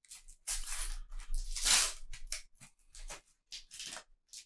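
A Panini sticker packet being torn open and handled: crinkly tearing and rustling of the wrapper and stickers in irregular bursts, the longest and loudest about one and a half seconds in.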